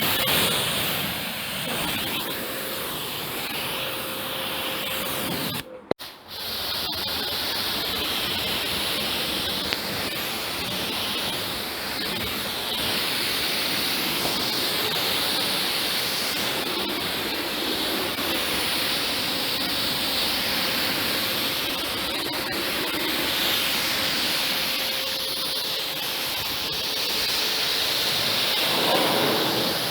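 Kärcher K7 pressure washer spraying water onto a car: a steady hiss of the jet that cuts out briefly about six seconds in, then runs on.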